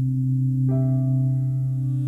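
Slow ambient background music: held notes over a deep steady drone, with a new chord coming in about two-thirds of a second in.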